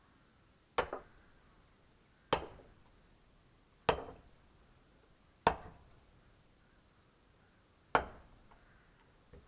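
Firewood being split: five sharp knocks with a short ringing tail, about one every second and a half, the last after a longer pause.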